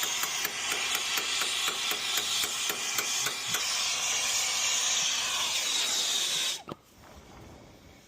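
Acetylene brazing torch flame hissing steadily while heating a compressor line joint to melt the old solder, with a fast run of light ticks, about six a second, in the first half. The hiss cuts off suddenly about six and a half seconds in.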